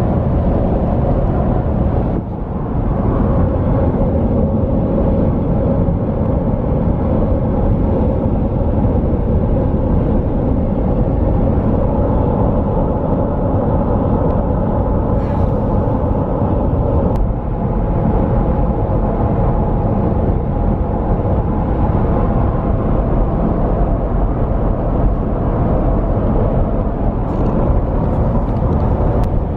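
Steady road and engine noise inside a car's cabin at highway speed, a low rumble with tyre hiss. It dips briefly twice.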